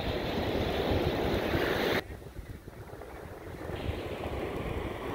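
Wind buffeting the phone's microphone over a steady wash of surf on a sandy beach. The noise drops suddenly about two seconds in, then builds back a little.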